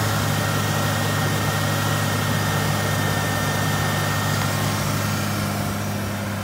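Ford Aerostar's 3.0L V6 idling steadily with an even low hum, heard over the open hood, growing a little fainter near the end.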